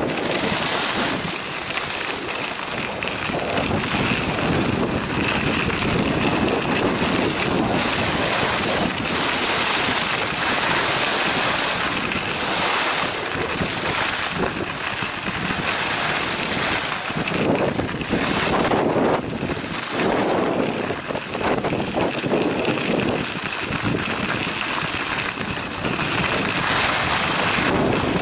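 Wind rushing over a handheld camcorder's microphone as the skier moves downhill at speed, mixed with the hiss of skis sliding over groomed snow. The rush swells and eases every second or two.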